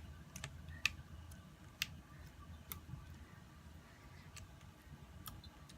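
Slime being handled and squished, giving faint scattered clicks and pops, roughly one a second.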